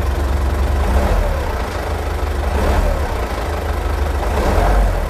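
Isuzu Elf minibus engine idling with a steady low rumble, blipped three times: about a second in, near the middle, and near the end, each rev rising and dropping back to idle. The engine runs smoothly, in good health.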